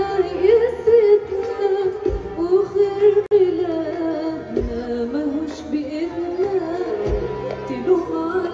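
A woman singing live with an ensemble of violins, accordion and drums, carried over a sound system. Her voice wavers through an ornamented melody over the band, with a deep drum hit about every two and a half seconds.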